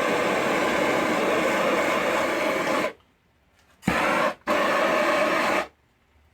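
Handheld gas torch flame hissing steadily while heating a fluxed copper pipe joint for soldering. The hiss cuts off about three seconds in, then comes back in two short bursts before stopping.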